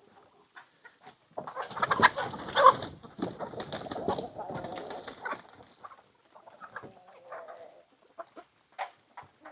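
Chickens clucking as they come out of the coop, with a loud burst of scuffling and rustling about a second and a half in that fades over the next few seconds into scattered clucks.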